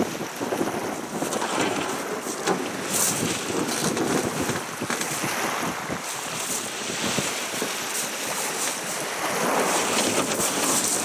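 Wind buffeting the microphone over choppy river water, with waves splashing and slapping against a boat.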